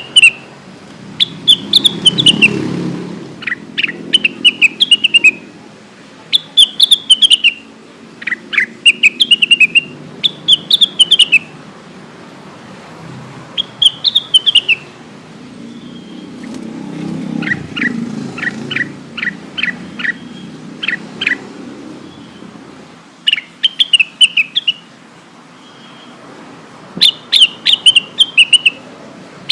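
Cucak wilis leafbird song: short phrases of quick, falling chirped notes repeated every second or two, with a run of about eight sharp clipped notes in the middle. A low rumble in the background swells twice.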